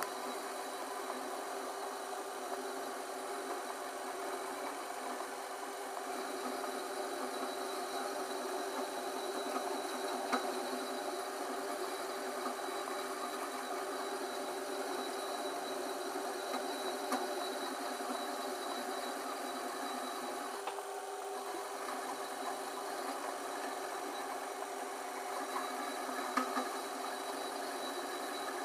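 Metal lathe running steadily with a copper pipe turning in it while a flat file is held against the spinning pipe: a steady motor hum with a rasping hiss over it. The sound dips briefly about 21 seconds in, and a few light ticks stand out.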